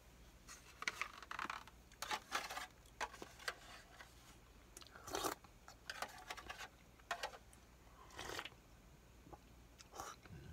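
A person slurping hot-pot broth from a spoon: a series of short, irregular sips, the loudest about five seconds in.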